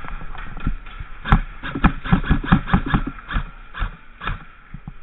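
A rapid, irregular string of sharp knocks and snaps, about a dozen packed into two seconds, then a few more spaced out.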